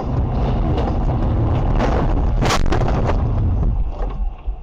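Car collision recorded from a dashcam on a rain-soaked highway: steady loud road and rain noise, then a hard crash about two and a half seconds in, several sharp bangs and crunches within a second. The noise cuts off suddenly near the end.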